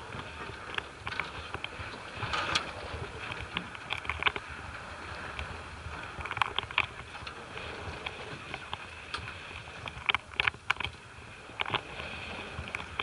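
Sea water washing and slapping against a fishing boat's hull, with irregular short sharp splashes and clicks throughout.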